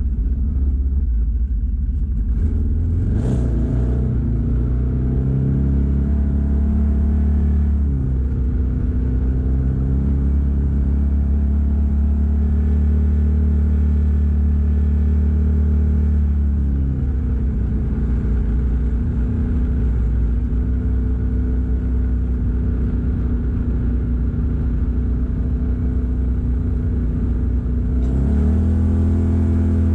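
Original Ford Maverick's engine running while driving along a gravel road, over a steady low rumble; the engine note rises and falls several times as the speed changes, rising again near the end.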